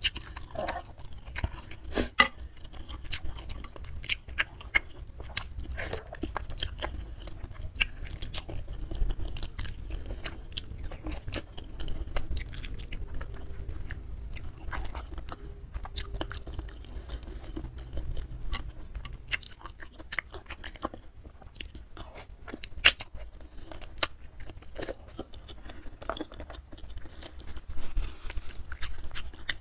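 Close-miked eating of spicy noodle soup with meatballs and chicken feet: steady chewing and biting, broken by frequent sharp, irregular crunchy clicks.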